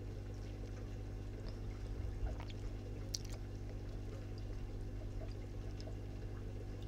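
Quiet handling of a Fiskars paper trimmer cutting paper: a few faint clicks and a soft low thump about two seconds in, over a steady low hum.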